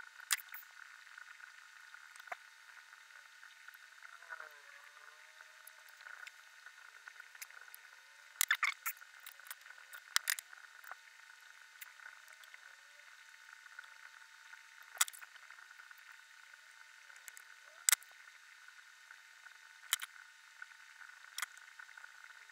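Scattered small sharp clicks and taps of a plastic model-kit part being trimmed with a utility knife and worked with tweezers, a quick cluster of them about a third of the way in, over a steady hiss.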